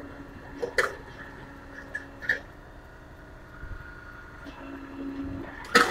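Flatbed tow truck winching a car up its tilted bed: a steady mechanical hum with a few sharp clanks, the loudest near the end.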